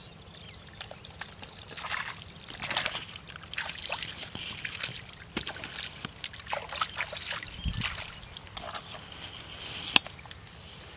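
Hands sloshing and splashing in shallow muddy water while groping in a mud hole for a crab, in irregular bursts of trickling and splashing from about two seconds in. A single sharp click near the end.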